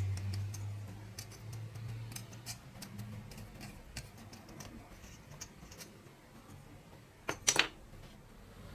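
Scattered light clicks and taps of small hard objects, over a low hum that fades out during the first few seconds, then a louder quick clatter of several clicks near the end.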